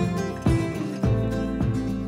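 Background music with a steady beat of about two strokes a second under held notes.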